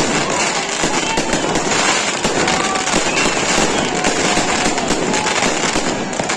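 New Year fireworks display: a dense, continuous crackle of many overlapping pops and bangs with no let-up.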